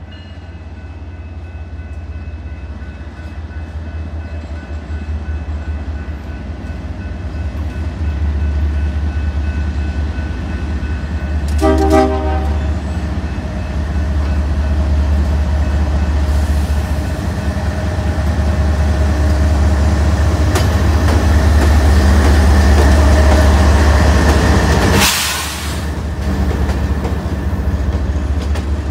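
Canadian Pacific GE ES44AC diesel locomotive leading a freight train: its engine rumble builds steadily as it approaches, with a short horn blast about twelve seconds in. The sound is loudest as the locomotive passes close and drops off sharply near the end, leaving the freight cars rolling past on the rails.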